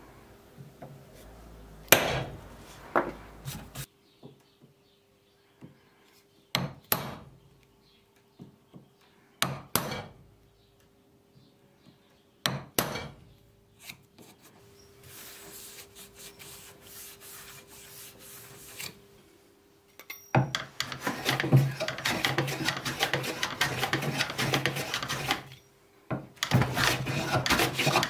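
A few separate sharp knocks on wood, then, about twenty seconds in, a steel-bladed hand tool shaving the old wooden plane body: fast, continuous scraping strokes with a short break near the end.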